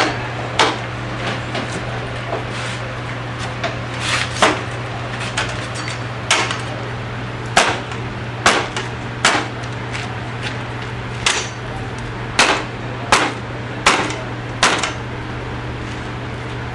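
Irregular sharp knocks of a hand tool striking a bamboo pole, one or two a second and thicker in the second half, over a steady low hum.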